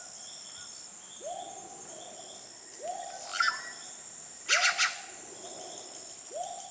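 Rainforest ambience: an unseen animal gives a short rising hoot about every second and a half, over steady high-pitched insect calls. A few sharp clicks or rustles stand out, the loudest a quick run of three about halfway through.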